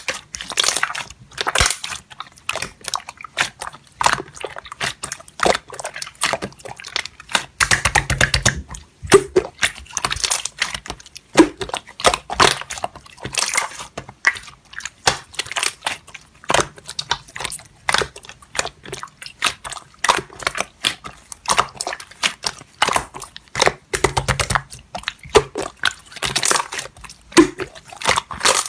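Slime being squeezed and kneaded by hand, giving a steady run of irregular sticky clicks, pops and crackles.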